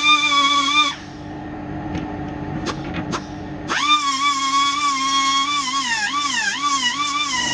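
Die grinder running at a high steady whine. It cuts off about a second in, and two sharp ticks are heard in the pause. It spins back up a little before halfway and dips in pitch several times as it bites into the grease gun's steel rivets.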